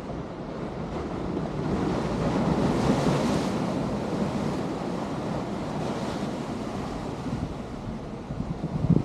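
Sea waves surging in and breaking over rocks, a rushing wash that swells to its loudest about three seconds in and then eases. Wind buffets the microphone, with a few low bumps near the end.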